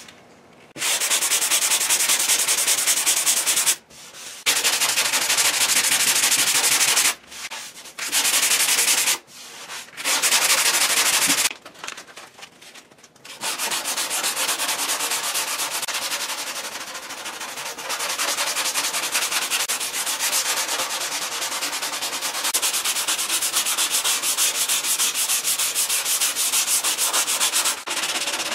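Hand block sanding of body filler on a car fender: a Dura Block sanding block with 3M sandpaper rasping in quick back-and-forth strokes. It comes in several short bouts with brief pauses at first, then runs steadily through the second half.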